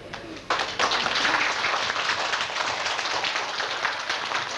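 Audience applauding: many people clapping, starting suddenly about half a second in and going on steadily.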